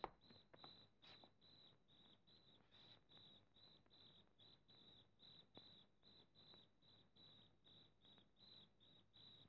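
Faint cricket chirping steadily, about two and a half short high chirps a second, with a few soft clicks near the start.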